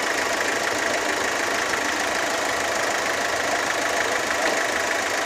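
Car engine idling steadily just after a restart: the click-no-start fault was a loose connection at the starter solenoid.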